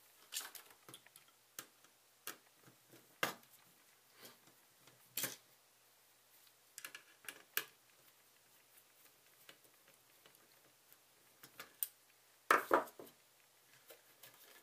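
Scattered small clicks and taps of hands and a screwdriver working on a converter box's metal chassis and power-supply board as its screws are taken out, with a louder clack a little before the end.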